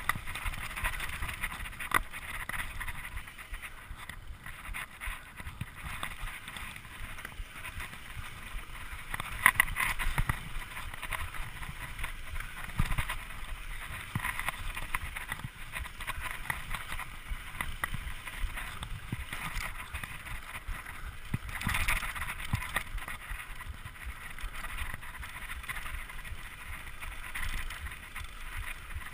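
Mountain bike ridden fast over dirt singletrack: a steady rush of tyre and wind noise, with frequent clicks and rattles from the bike over bumps and a few louder knocks.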